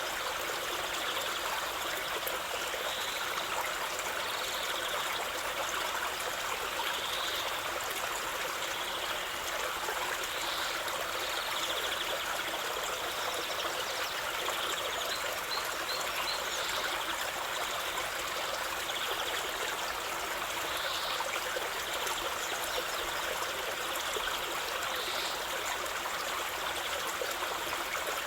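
A stream flowing steadily, a continuous rushing trickle of water, with faint short high chirps every few seconds.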